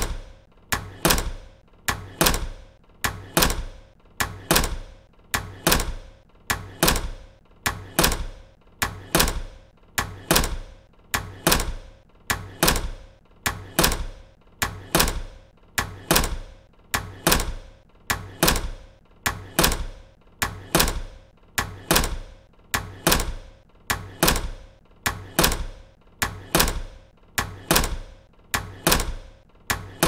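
Heavy wooden door being opened and shut over and over: sharp wooden clunks of the door against its frame and latch, each with a short ring, repeating about twice a second.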